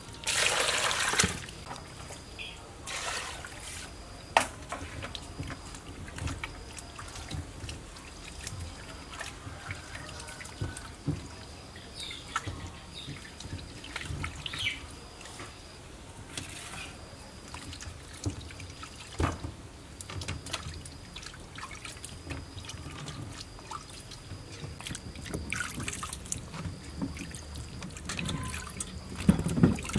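Hands washing peeled onions, pineapple pieces and carrots in a metal basin of water: splashing, trickling and dripping, with a loud splash about half a second in and scattered knocks of produce against the bowl.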